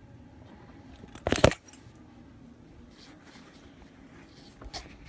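A brief rattling clatter of hard objects being handled about a second and a half in, then a single sharper click near the end, over a faint steady hum.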